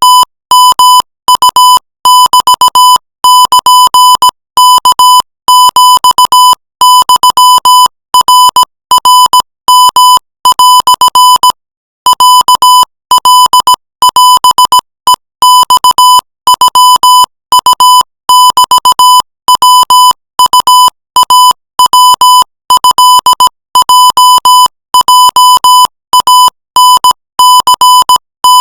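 Morse code sent as a single high-pitched beep keyed on and off in quick dots and dashes, at 20 words per minute, spelling out Thai text in Thai Morse code, with short pauses between letters and words.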